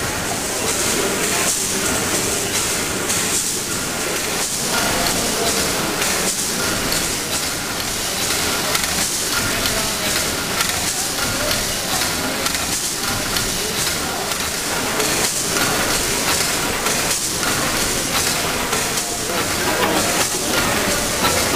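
Victorian steam pumping engine running slowly, with a steady hiss of steam and the clatter of its valve gear and rods, rising and falling about once every two seconds with the engine's strokes.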